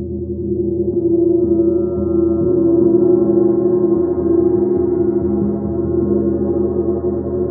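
A 28-inch Black Sun gong played continuously with a soft felt mallet: its many overtones build into a dense, sustained ringing, with higher overtones joining about a second and a half in, then holding steady.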